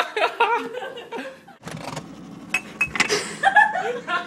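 People laughing and snickering under their breath, with a few sharp clicks about midway.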